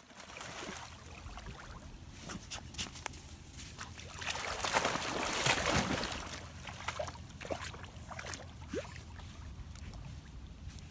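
Dogs wading and splashing through shallow lake water. The splashing is loudest about halfway through.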